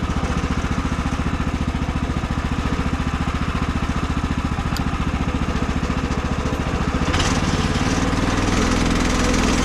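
The sawmill's small gasoline engine idling steadily with an even, rapid pulse; about seven seconds in its sound shifts and becomes noisier.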